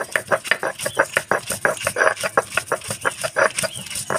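Stone roller crushing ginger and garlic on a flat stone grinding slab (shil-nora), a rapid, even rhythm of gritty crunching strokes, several a second.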